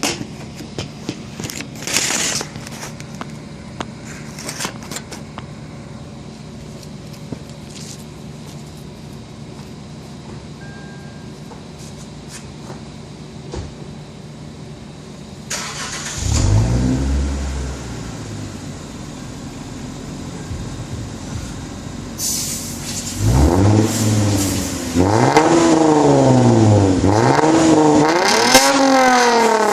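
Lexus IS250's 2.5-litre V6 through an HKS cat-back exhaust with an Invidia midpipe, idling steadily with some clicks and knocks at first, then one quick blip of the throttle about halfway through. Near the end it is revved repeatedly, four or five short rises and falls in pitch, louder than the idle.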